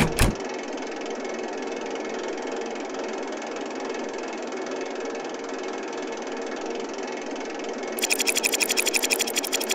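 Cartoon sound effect of a train running past: a short knock, then a steady rattling noise that turns to a faster clatter, about ten beats a second, in the last second and a half.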